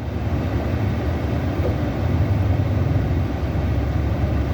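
Low, steady vehicle rumble that swells at the start and holds.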